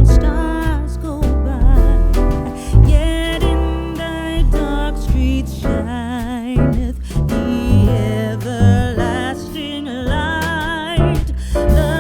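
Background music: a song with a sung vocal melody over bass and a steady beat.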